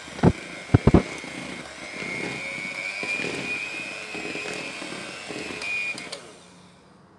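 Hand-held electric mixer running, its beaters whisking cake batter in a bowl with a steady whine; a few sharp knocks come in the first second, and the motor stops about six seconds in.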